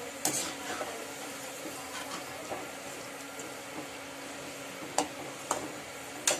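Bondas deep-frying in hot oil in a metal kadai, a steady sizzle, while a slotted metal ladle turns them, clinking sharply against the pan a few times, mostly near the end.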